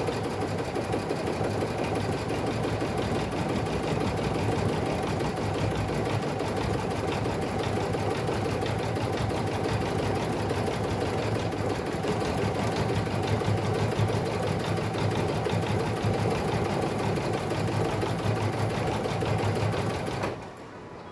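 Brother Innov-is BP2150L sewing-and-embroidery machine running steadily in embroidery mode, stitching an appliqué tack-down that fixes a scrap of brown synthetic leather in place. It stops suddenly near the end as the tack-down is finished.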